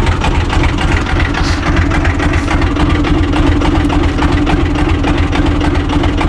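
UTB 445 tractor's diesel engine idling steadily just after a start, with the oil pressure still coming up on the gauge.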